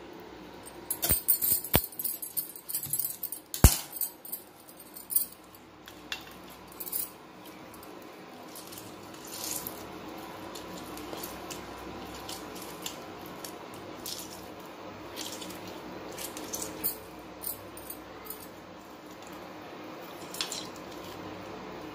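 Lemons being cut with a knife and squeezed by hand into a stainless steel bowl: a few sharp clicks and knocks in the first four seconds, then quiet handling sounds and juice dripping into the bowl, with glass bangles clinking now and then.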